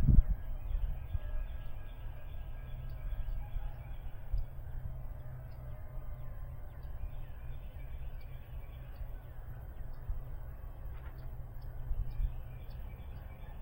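Steady low rumble of wind on the microphone, with a knock at the very start and faint high chirps scattered through it.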